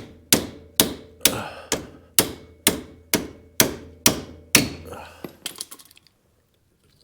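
Hammer blows on metal, about two a second, each ringing briefly, then a few lighter taps around five seconds in. The hammer is driving out a tight, twisted pin during a CV axle change on a Polaris Ranger 800.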